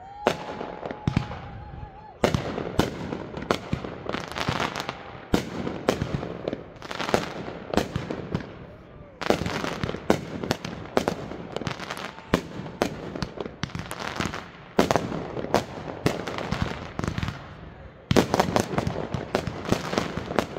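Aerial fireworks bursting in rapid succession, several bangs a second with dense crackling between them, coming in waves. A short held whistle-like tone sounds near the start.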